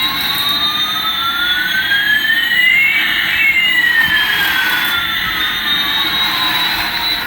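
Electronic jet-engine sound effect from a toy plane's sound chip: a steady hissing rush with two synthetic tones sweeping in opposite directions, one rising and one falling, crossing about three seconds in.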